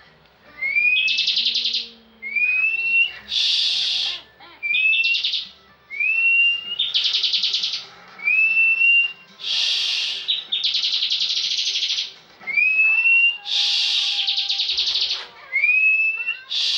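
Bar-winged prinia (ciblek) singing energetically. About eight repeated phrases, each a short rising whistle followed by a loud, rapid buzzing trill, with short gaps between them.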